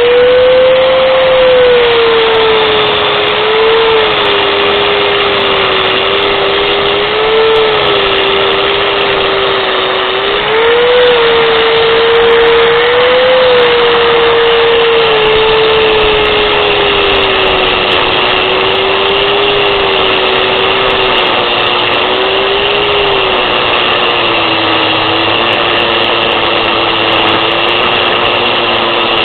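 Harbor Freight Warrior 4½-inch angle grinder running continuously, its motor whine wavering and dipping in pitch as the disc is worked, over a harsh hiss.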